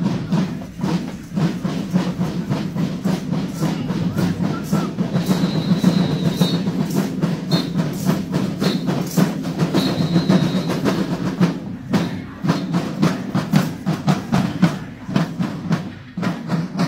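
A school marching band's drums playing a steady marching cadence, with quick, even drum strokes over a low steady drone.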